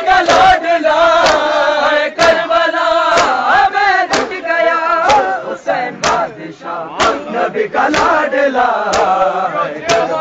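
A crowd of men chanting a nauha, a Shia mourning lament, in unison, with sharp rhythmic chest-beating (matam) about once a second.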